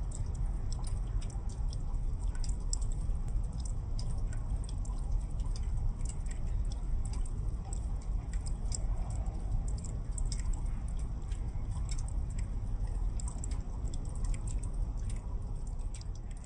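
Water dripping and seeping from a soaker hose onto wet gravel: an irregular patter of small ticks, several a second, over a steady low rumble.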